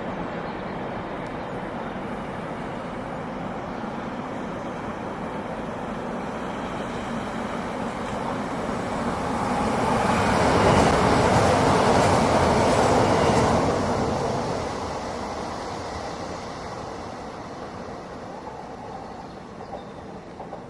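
A train passing by: its rumble builds steadily, is loudest for a few seconds near the middle, then fades away as it recedes.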